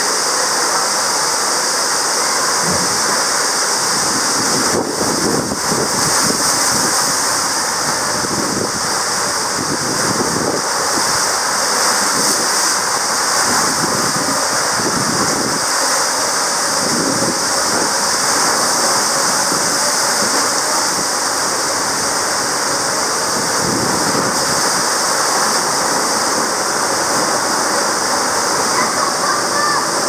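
Steady rushing of water sliding down a tube water slide with an inflatable tube riding on it: a continuous hiss and splash of flowing water with no break.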